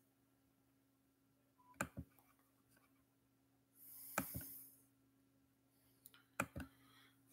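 Near silence: room tone with a low steady hum, broken by a few faint clicks in pairs, about two seconds in, four seconds in with a brief rustle, and near the end.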